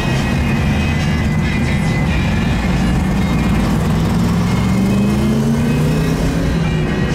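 Car engines in slow street traffic heard from inside a car, with one engine's pitch rising as it accelerates from about four seconds in. Music plays underneath.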